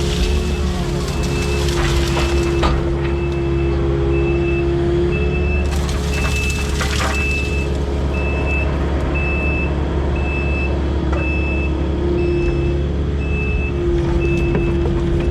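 Heavy diesel machinery running steadily with a hydraulic whine while a reversing alarm beeps about twice a second through most of it. Brief cracks of brush and branches breaking under the excavator come near the start and again about six seconds in.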